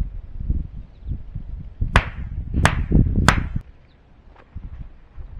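Three shotgun shots in quick succession, about two-thirds of a second apart.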